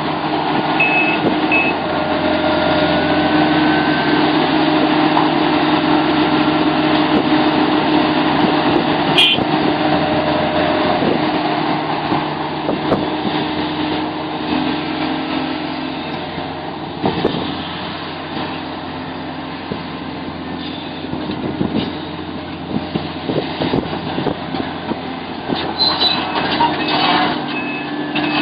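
Sumitomo SH700LHD-5 heavy excavator running steadily under load, with scattered metallic knocks and one sharp bang about nine seconds in. A reversing alarm beeps briefly near the start and again near the end.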